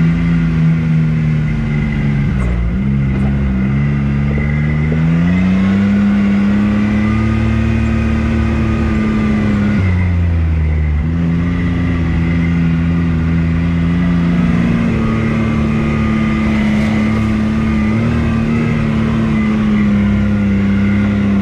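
Off-road utility vehicle engine running under way on a dirt trail, its pitch dropping briefly about two and a half seconds in and again around ten seconds as the throttle eases, then climbing back to a steady run.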